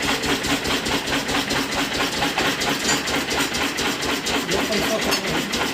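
Ceiling-fan ring cutting machine running steadily with a fast, even throb, near the end of cutting the fan's ring.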